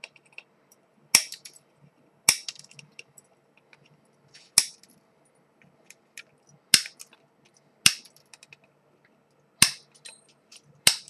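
Wire cutters snipping the excess leads off soldered LEDs at the board: seven sharp snaps, spaced irregularly a second or two apart.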